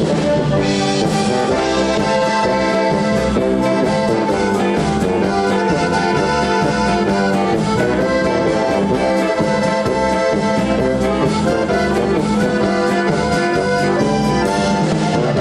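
Live polka band music led by two piano accordions playing the tune together, with a brass horn underneath and a steady beat.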